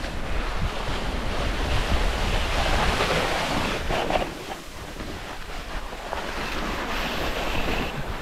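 Continuous hissing scrape of snow under a climber sliding down a steep couloir on his seat (a sitting glissade), mixed with wind buffeting the microphone. It is loudest in the first half and eases off somewhat after about four and a half seconds.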